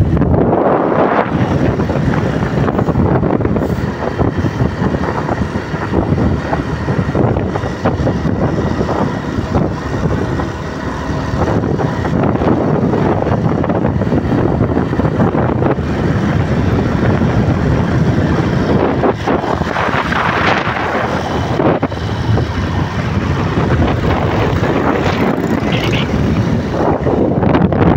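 Wind rushing over the microphone of a moving motorcycle, mixed with engine and road noise, loud and steady.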